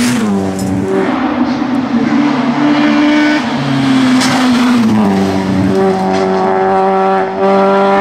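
Naturally aspirated 2-litre four-cylinder engine of a Renault Laguna BTCC race car at high revs, the pitch dropping in steps as it brakes and shifts down for a tight bend, first near the start and again from about three to five seconds in, then holding a steady high note under power.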